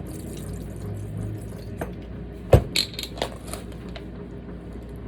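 Utensil and dish handling while preparing a pasta salad: a faint rustle, then a few sharp knocks and clinks against a dish about two and a half to three and a half seconds in, the first the loudest.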